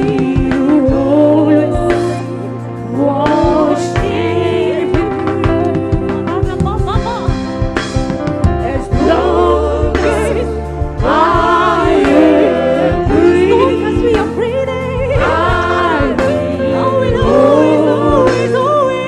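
Gospel praise singing, voices in harmony over instrumental backing with a steady bass line.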